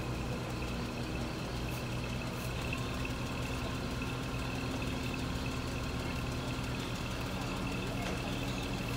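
An engine idling steadily, a constant low hum with a thin steady high tone above it.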